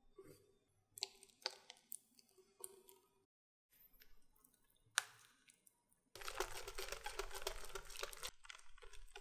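Wire whisk beating batter in a glass bowl, in a dense run of rapid clinking and sloshing strokes from about six seconds in that eases off near the end. Before that come a few scattered sharp clicks and taps of glassware being handled.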